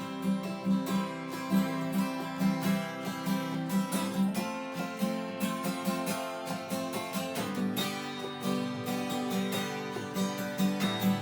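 Acoustic guitar strumming and picking a rhythmic country-style intro with a steady beat.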